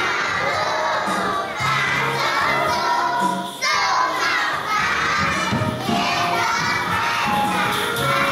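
A group of young children chanting a Hakka nursery rhyme together in loud, shouted voices over backing music, with a short break between lines about three and a half seconds in.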